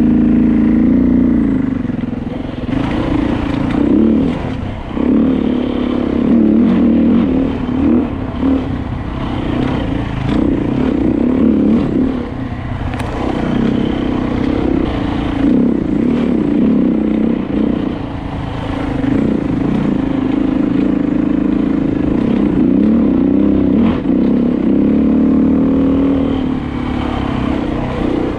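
Dirt bike engine, heard close from the rider's helmet, revving up and down continuously while trail riding.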